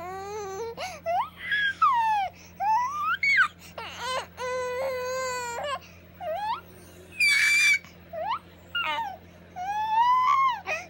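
Infant fussing: a string of short, whiny cries that bend up and down in pitch, with one longer held cry about halfway through and a harsh squeal shortly after.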